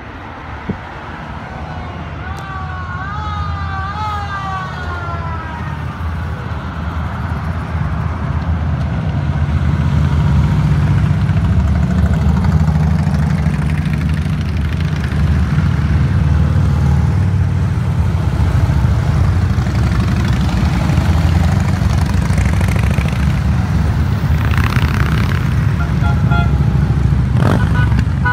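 A police car's siren sweeps up and down in short rises and falls as the lead patrol car passes. Then the low drone of many cruiser and touring motorcycle engines builds and stays loud as a long column of motorcycles rides by at parade speed.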